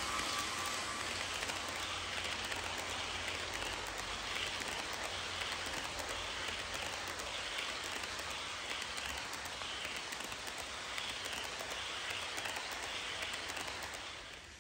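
HO scale model passenger cars rolling past on sectional track: a steady rattling hiss of small metal wheels on the rails, with a faint click repeating about once a second. It drops off near the end as the last car goes by.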